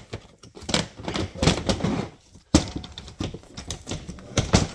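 Quick, irregular clicking and clattering, with a sudden knock about two and a half seconds in: boxed items being handled and moved about.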